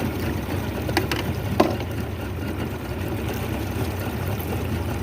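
Boat motor idling steadily, with two sharp clicks about a second and a second and a half in.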